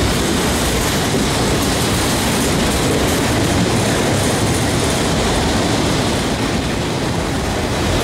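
Freight train autorack cars rolling past at close range: a loud, steady noise of steel wheels running on the rails.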